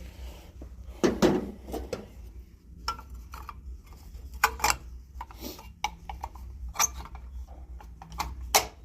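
Metal tools and fittings being handled, giving irregular clinks and knocks, over a steady low hum.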